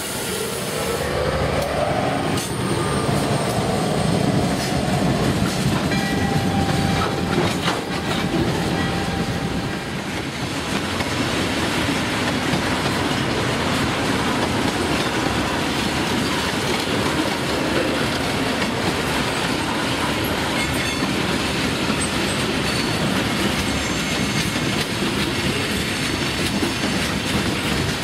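A freight train of tank cars, covered hoppers and boxcars rolling past close by, with a steady rumble and clatter of wheels on the rails and a few brief high wheel squeals.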